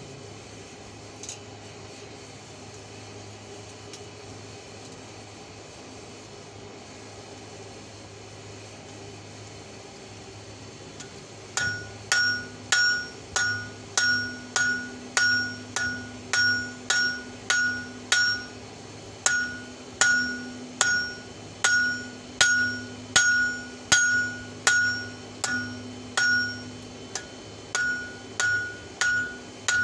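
Hand hammer striking a red-hot wrench end on a steel anvil, forging it into fork tines. The blows begin about twelve seconds in, at roughly one and a half a second, each with a bright ringing ping from the anvil, with two brief pauses. Before the blows there is only a steady low hum.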